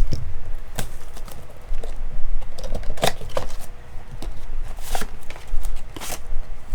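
Baseball cards being flipped through by hand: card stock sliding and rubbing, with a few sharper snaps a second or two apart.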